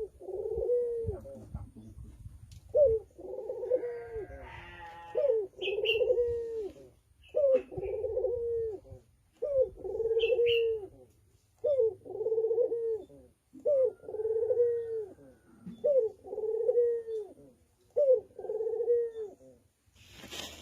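Male Barbary dove (burung puter) cooing in courtship of a female: a repeated coo phrase about every two seconds, each opening with a short sharp note before the rolling coo.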